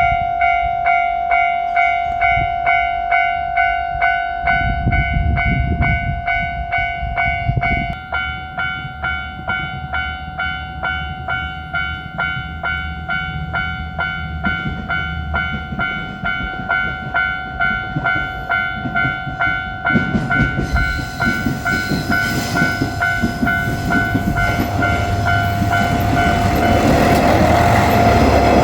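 Japanese level-crossing alarm bell ringing in an even, fast rhythm of about one and a half strikes a second. From about 20 seconds in, a JR Shikoku KiHa 185 diesel railcar set approaches and passes, its rumble growing louder under the bell towards the end.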